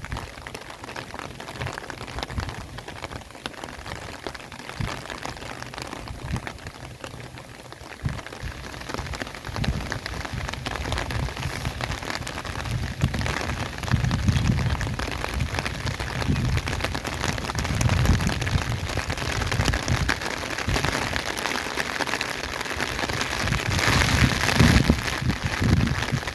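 Steady rain falling, with low rumbling swells every few seconds in the second half.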